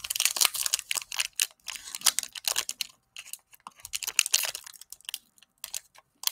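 Cellophane wrapper of a trading-card cello pack crinkling and crackling as it is torn open by hand, a fast irregular crackle that thins out near the end. Opening it without scissors is a struggle.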